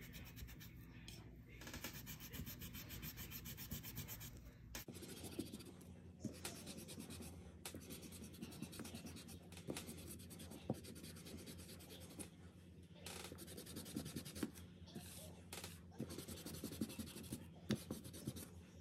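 Eraser rubbed quickly back and forth on paper, rubbing out pencil lines, in rapid scratchy strokes with a few short pauses.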